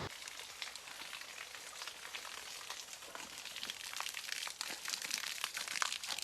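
Falling water and spray at a waterfall: a faint, even hiss full of small irregular patters and crackles, growing a little busier toward the end.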